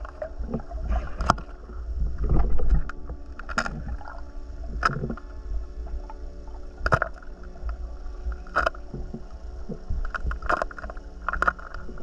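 Underwater sound of a diver moving through water: a steady low rumble of water against the camera, with sharp clicks and knocks every second or two.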